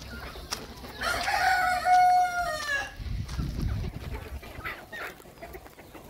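A desi country-chicken rooster crows once, starting about a second in: one long call of about two seconds, the loudest sound here. Hens of the free-ranging flock cluck around it.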